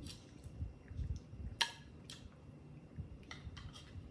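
A few short sharp clicks and taps, the loudest about one and a half seconds in, from a baby monkey handling a ceramic plate of orange segments on a tiled surface while it eats, over soft low thumps of its movement.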